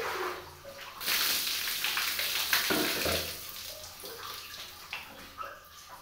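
Water poured from a plastic basin over a bather's head and body, splashing down, loud for about two seconds starting a second in, then dwindling to scattered drips and small splashes.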